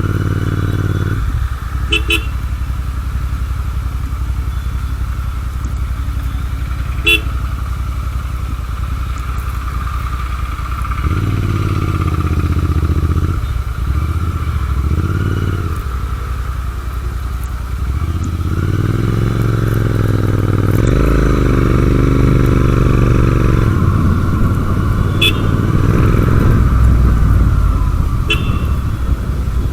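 Motorcycle engine running under way with a constant rush of riding noise, its pitch climbing and dropping as it accelerates and backs off, most clearly from about two-thirds of the way in. A few short sharp clicks are heard.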